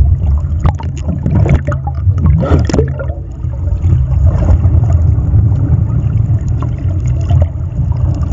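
Muffled water rumble and gurgling heard through a camera held underwater, steady and deep, with a few knocks and a short rush of noise in the first three seconds.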